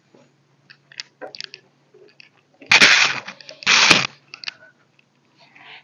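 Handling noise as a floor-standing tower speaker is tilted and turned round by hand: a few light knocks, then two loud scraping rubs about a second apart near the middle, and some small knocks after them.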